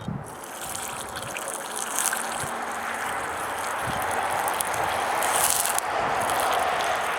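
Hot clay-coated steel knife blade quenched in oil: a sustained sizzling hiss that starts as the blade goes in and slowly grows louder, with sharper flare-ups about two seconds in and again at about five and a half seconds.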